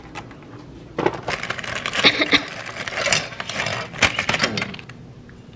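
Clear plastic packaging crinkling and rustling while small plastic caulking scraper tools click and clatter on a hard countertop, busiest from about a second in until shortly before the end.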